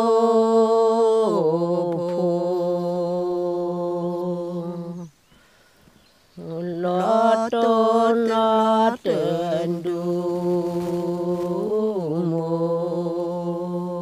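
A woman chanting traditional Karen verse (tha) unaccompanied, in long held notes. Each phrase starts higher and drops to a lower sustained note, with a pause for breath about five seconds in.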